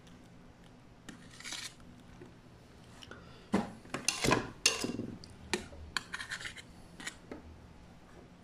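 A kitchen utensil scraping over whipped cream and against a stainless steel tray while lines are combed into the frosting of a sponge roll, with a run of sharp clinks and knocks on the metal in the middle.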